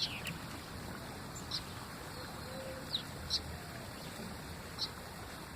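Birds giving short, high chirps, one at a time and a second or so apart, over a steady outdoor background hiss.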